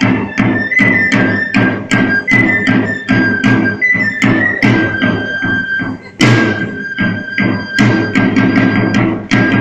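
Dance music with a fast, even drumbeat under a high melody of long held notes. It breaks off briefly about six seconds in and comes back with a loud hit.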